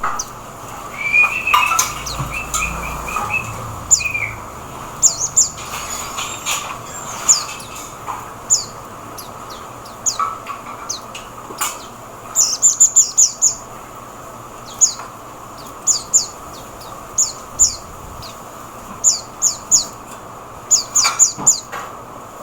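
Oriental white-eye (mata puteh) calling: many short, high chirps that sweep downward, given singly and in quick runs of three to five. A lower trilling call sounds between about one and four seconds in.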